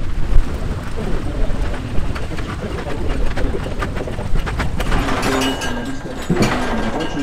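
Cable-hauled rail carriage of a canal inclined plane rolling slowly along its steel rails with a boat aboard: a low rumble with many small clicks and creaks from the wheels and frame.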